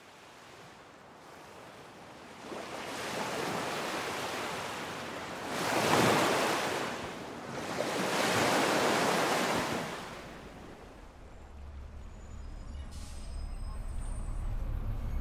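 Waves breaking on a shore, swelling twice to a loud peak about six and nine seconds in, then ebbing away. A low rumble rises in the last few seconds.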